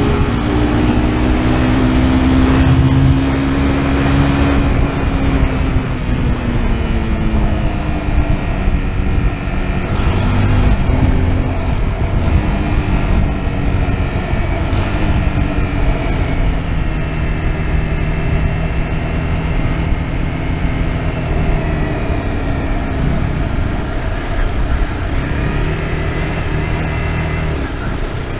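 Single-cylinder motorcycle engine under way, its note rising and falling several times as the rider works the throttle and gears, over a steady low wind rumble.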